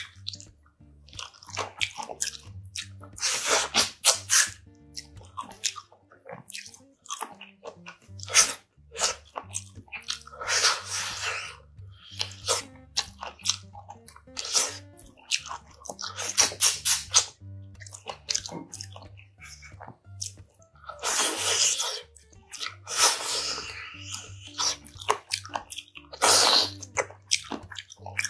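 Eating braised spicy pork backbone by hand: a run of loud, irregular sucking and slurping bursts as meat is pulled off the bones with the mouth, with chewing in between.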